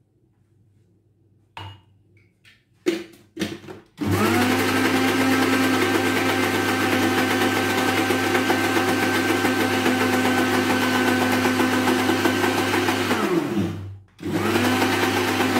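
Countertop blender blending a liquid batter of egg, sugar and oil. A few clicks of the switch come first. About four seconds in, the motor spins up and runs steadily for about nine seconds, then winds down. It runs again for a short pulse near the end.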